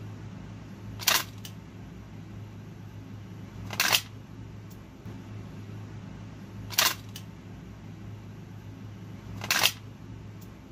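Sharp clicks of a Walther PDP working in a T2G level 3 duty holster's retention, four in all, about three seconds apart. Several are followed by a fainter second click, and a steady low hum runs underneath.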